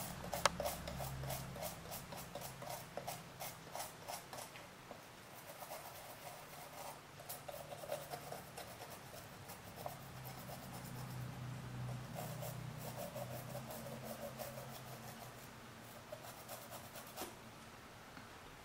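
Small brush scrubbing an iPhone 4S logic board in bursts of quick, scratchy strokes, working corrosion off where the vibrator connects.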